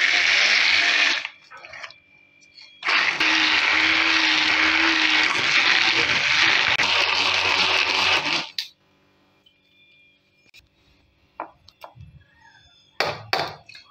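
Electric hand blender running in a steel bowl of partly frozen bottle-gourd and milk ice cream mixture. It runs in two bursts, a short one at the start and a longer one of about five and a half seconds, followed by a couple of knocks near the end. The mixture is being re-blended to break up ice so the ice cream sets creamy.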